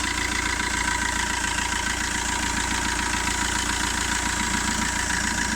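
2008 Fiat Linea engine idling steadily with its timing chain freshly replaced; the owner says it now runs quieter, with no rattle or other odd noise.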